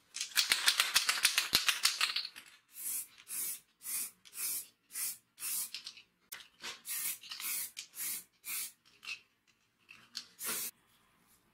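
Aerosol spray-paint can: a quick rattling for about two seconds as the can is shaken, then about a dozen short hissing bursts of spray, roughly two a second, as a coat of paint is laid on.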